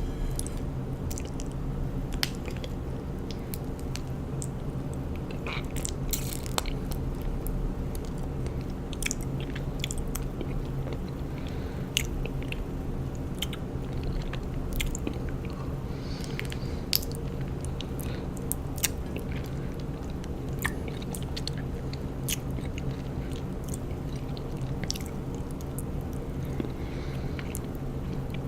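Close-miked chewing of raw honeycomb: sticky, wet smacks and clicks from the wax and honey, coming irregularly several times a second. A steady low hum runs underneath.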